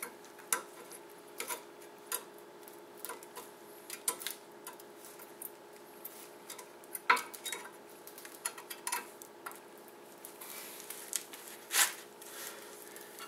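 Brake pads being fitted into a disc-brake caliper bracket: scattered light metal clicks and clinks of pads against the bracket, with two sharper knocks about seven and twelve seconds in, over a faint steady hum.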